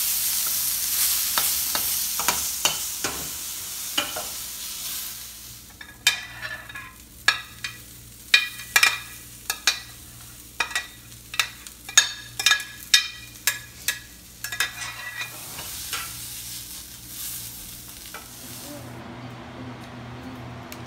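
Onion and beans sizzling in a frying pan as they are stirred with a utensil. From about six seconds in comes a run of sharp scrapes and clinks, lasting several seconds, as corn is added. The sizzle then returns and eases off near the end.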